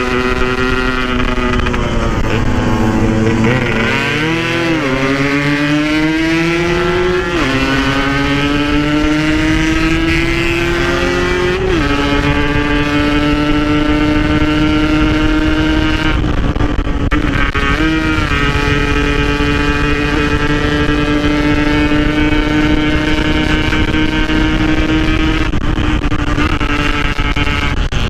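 Yamaha RX-King's two-stroke single-cylinder engine running hard under riding load. The pitch dips and climbs in the first few seconds, rises and drops sharply with upshifts about 7 and 12 seconds in, then holds steady at cruising revs.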